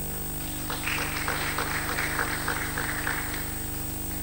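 A short round of audience applause, rising about a second in and dying away after about three seconds, over a steady electrical mains hum.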